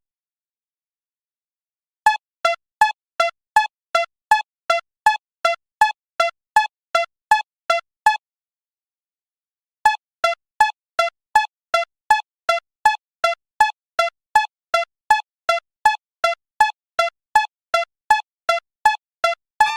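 Japanese railroad crossing warning bell ringing, an electronic two-tone 'kan-kan' that alternates high and low strikes about two and a half times a second. It starts about two seconds in, stops for about two seconds near the middle, then rings again.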